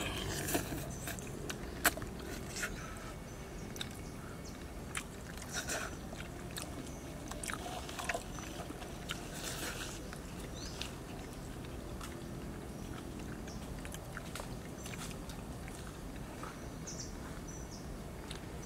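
Close-up eating: chewing with sharp clicks and scrapes against a shell bowl, frequent in the first half and thinning out after about halfway. After that mostly a steady low background, with a few faint high chirps near the end.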